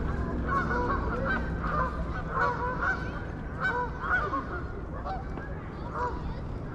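Geese honking: many short overlapping honks that come thick at first and thin out after about four seconds, over a steady low rumble.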